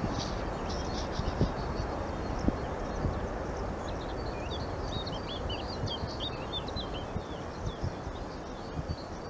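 A small bird chirping in quick short notes, thickest around the middle, over a steady low rumbling outdoor noise with occasional dull bumps.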